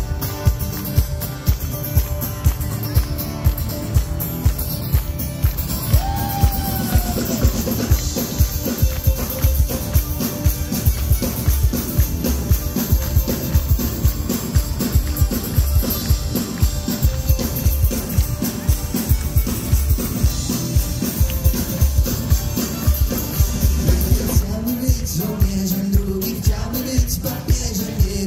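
Live band playing an instrumental intro: strummed acoustic guitar over a drum kit keeping a steady beat of about two hits a second.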